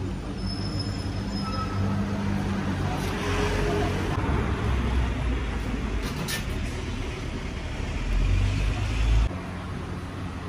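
Steady low rumble of street traffic and city background noise, with a single sharp click about six seconds in. The background drops abruptly in level near the end.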